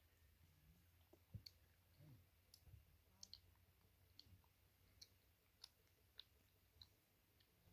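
Near silence, with faint, irregular high clicks and ticks scattered through it.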